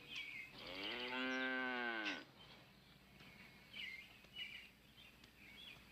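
A cow mooing once: a single long call of about a second and a half that rises slightly and falls away at the end.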